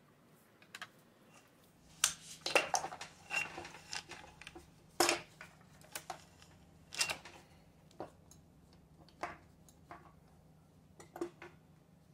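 Metal hand tools and outboard motor parts clinking and clattering as they are handled: a run of separate sharp metallic clicks, bunched about two to three seconds in, with single loud clinks about five and seven seconds in and a few fainter ones after. A faint steady low hum runs underneath from about two seconds in.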